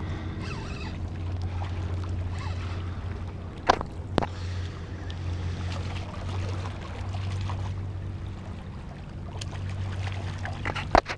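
Water splashing and sloshing as a hooked striped bass thrashes at the surface against shoreline rocks, with a few sharp splashes or knocks, over a steady low hum.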